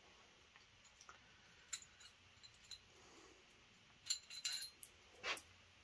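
Faint, scattered metallic clinks and clicks of steel engine parts and hand tools being handled, with a quick run of clinks about four seconds in and one more just after five seconds.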